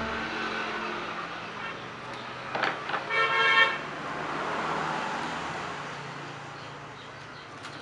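A short horn-like toot, one steady tone about half a second long, sounds about three seconds in, just after a brief clatter; otherwise low background noise.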